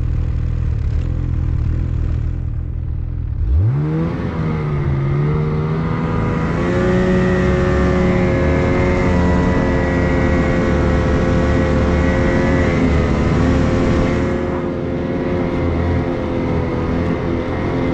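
Snowmobile engine running low, then revving up sharply about three and a half seconds in and holding steady high revs, easing off slightly near the end.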